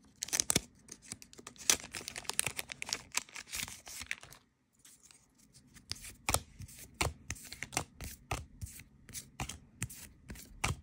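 A foil trading-card booster pack being torn open and handled with crackly rustling for about four seconds. After a short pause, the cards are flicked over one behind another in the hand, making sharp card-on-card clicks about two or three times a second.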